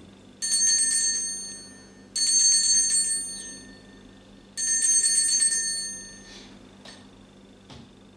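Altar bells rung three times, each ring a bright jangle of high tones that fades over about a second and a half. They mark the elevation of the chalice at the consecration.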